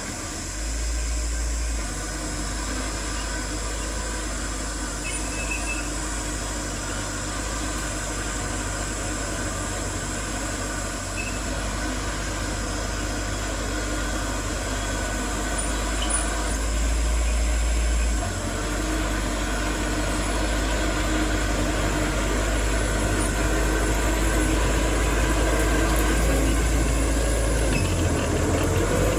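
Diesel engines of heavy construction machinery, dump trucks and a bulldozer, running steadily with a deep rumble. The rumble grows louder and softer a few times as the machines work.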